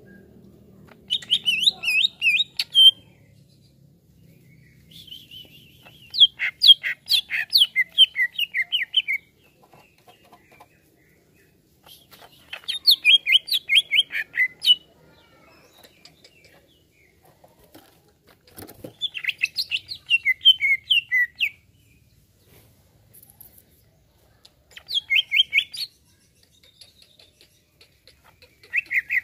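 Greater green leafbird (cucak ijo) singing in six bursts of rapid, chirping phrases, each one to three seconds long, with pauses of a few seconds between.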